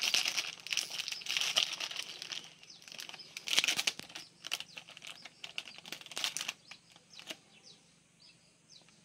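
Plastic packaging of a self-heating meal pack crinkling as it is handled and torn open by hand, dense for the first couple of seconds, then in scattered bursts that die away near the end.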